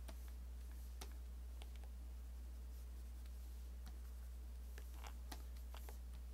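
Stylus tapping and scratching on a graphics tablet while drawing: a handful of light, scattered clicks over a steady low electrical hum.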